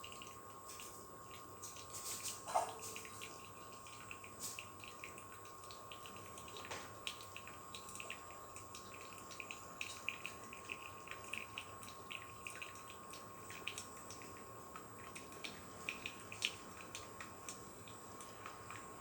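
Philips HD5407 drip filter coffee maker brewing: irregular small pops, gurgles and drips as the heated water is pushed up and through, over a faint steady tone.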